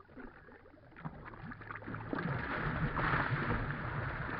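A hooked bass of about eight pounds thrashing and splashing at the surface right beside the boat, fighting the line. It is faint at first and grows louder after about a second.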